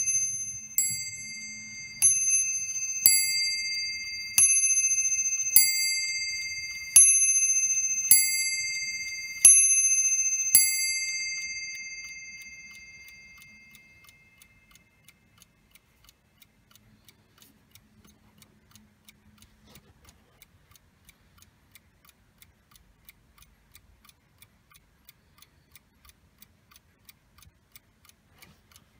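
Warmink mantel clock striking on its brass cup bell: about ten evenly spaced strokes a little over a second apart, the ringing dying away about fourteen seconds in. After that only the movement's faint, steady ticking is left.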